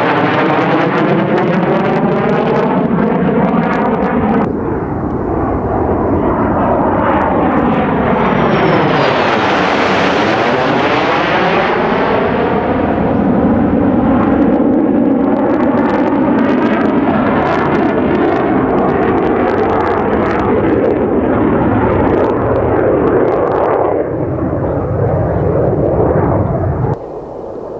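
Mitsubishi F-2 fighter's General Electric F110 turbofan roaring loudly through its display manoeuvres. A phasing sweep dips and rises again about ten seconds in as the jet passes closest. The roar drops sharply near the end.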